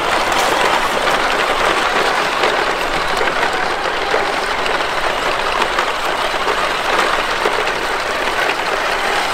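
Traxxas TRX-4 RC crawler towing two toy RC trucks over dirt and dry leaves: a steady rattling crunch of tyres and drivetrain, with many small crackles.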